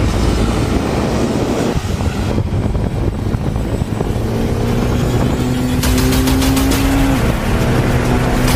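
GPR250R motorcycle engine running hard on a race track: its pitch climbs steadily under acceleration and drops abruptly a little after seven seconds, as at a gear change.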